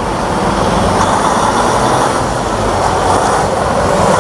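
Steady rush of running water washing mud off a toy truck.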